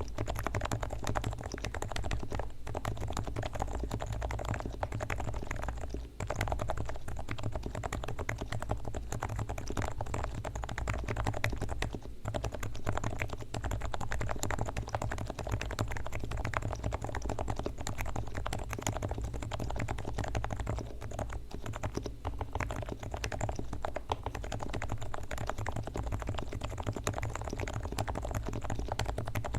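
Continuous fast typing on a Leopold FC660C silent-version electro-capacitive (Topre) keyboard with 45 g switches whose sliders and springs are Krytox-lubed and whose stabilizers are lubed: a dense, steady stream of soft keystroke clicks.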